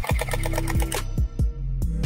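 Electric gel blaster firing a rapid full-auto burst of fast, even clicks that stops about halfway through, over background music with a steady kick drum.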